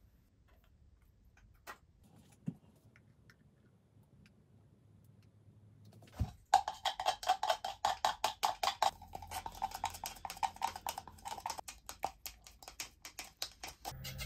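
A plastic stirring stick tapping and scraping around the inside of a plastic measuring beaker while mixing acrylic paint: a fast run of ticks that starts about six seconds in, after a few faint clicks.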